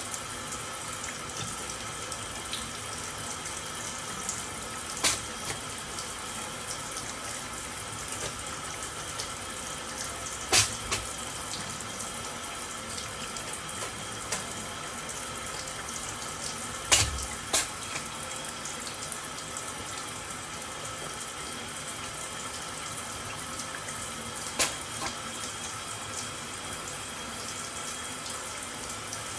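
Tap water running steadily into a sink, broken a handful of times by short, sharp sneezes from a Scottish Fold cat, two of them in quick succession.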